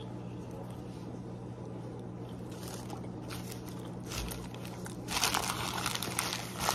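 Paper sandwich wrapper crinkling as it is handled, faint at first and much louder from about five seconds in, over a steady low hum.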